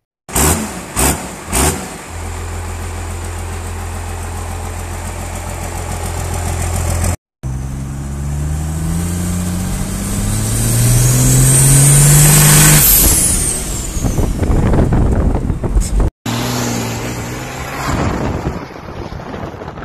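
Compound-turbo 12-valve Cummins diesel in a 1994 Dodge Ram 2500, straight-piped: three quick revs, then a steady idle. After an abrupt cut it pulls hard under full throttle, its note climbing steadily with a high turbo whistle that rises and falls near the peak. After another brief cut the engine runs on under load.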